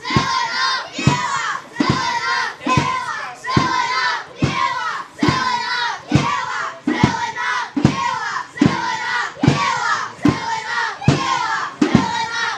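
Group of football supporters chanting in unison, a shouted chant repeated in an even rhythm of a little over one a second, with a low thump on each beat.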